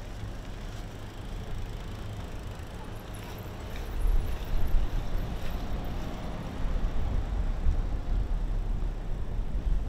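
Night city street ambience: a steady low rumble that grows louder and more uneven about four seconds in, with a few faint clicks.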